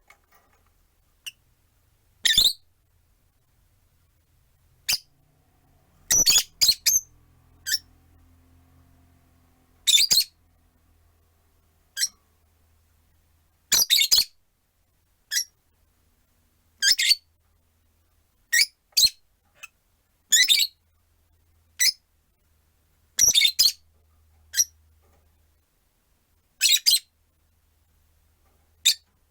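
Rosy-faced lovebirds giving short, shrill chirping calls every second or two, some in quick pairs, from several birds at once.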